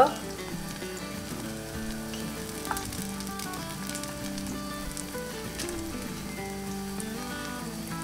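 Adzuki-bean pancake batter frying in hot oil in a nonstick pan, a steady sizzle with a few faint crackles.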